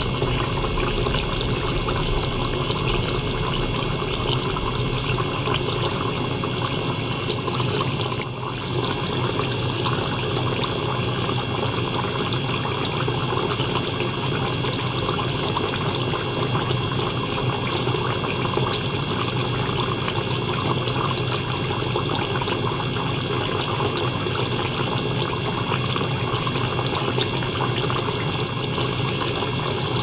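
Small electric circulation pump running steadily, with water flowing from a tube and splashing into a small tank. A steady high whine runs over the water noise.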